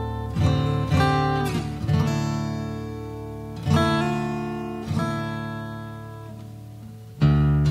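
Acoustic guitar music: slow strummed chords, each left to ring and fade before the next, with a long fading chord followed by a louder strum near the end.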